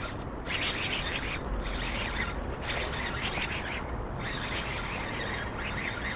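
Water splashing and sloshing in irregular bursts as a hooked largemouth bass is fought to the kayak.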